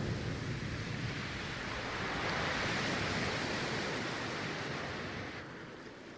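Arena crowd noise during a volleyball rally: a steady roar of many voices that swells slightly, then fades out near the end.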